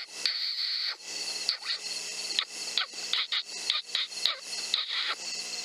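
Electronic predator caller playing an animal distress call: short, irregular squealing pulses, about three a second. It is a recorded sound played to lure coyotes in.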